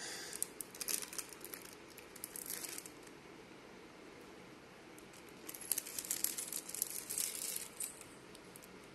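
Plastic packet of processed cheese slices crinkling as a slice is taken out and its plastic peeled off. The crinkling comes in two spells of a few seconds each, the second starting about five and a half seconds in.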